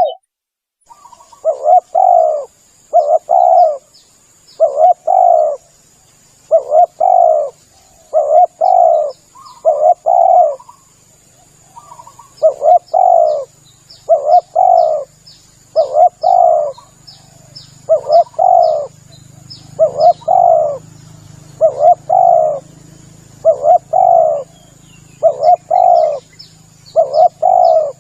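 Spotted dove (tekukur) cooing over and over: loud two-part coos come roughly every one and a half to two seconds, the kind of call played as a lure to bring wild doves in. A steady thin high-pitched whine and rows of faint quick high ticks run behind them.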